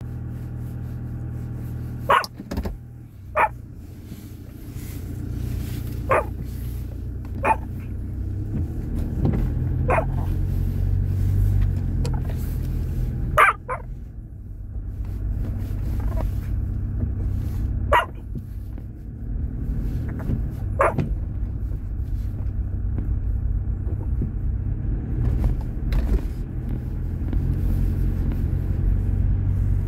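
Steady low road and engine rumble inside a moving car's cabin, broken by about ten short, sharp sounds at irregular intervals, the loudest about halfway through.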